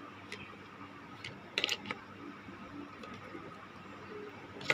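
A few small stones set and dropped into the bottom of a plastic flower pot, giving short hard knocks on the plastic, loudest in a quick cluster about a second and a half in and again near the end.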